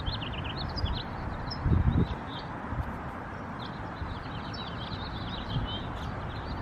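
Small birds chirping over and over, with wind rumbling on the microphone in a gust about two seconds in.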